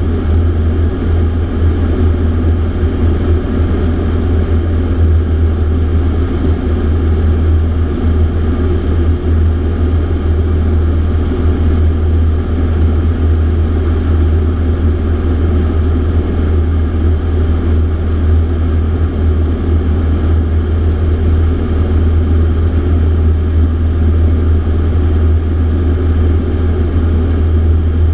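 Piper PA-28 Archer II's four-cylinder Lycoming engine and propeller running at a steady cruise, heard inside the cabin in flight as a loud, even drone with a deep hum.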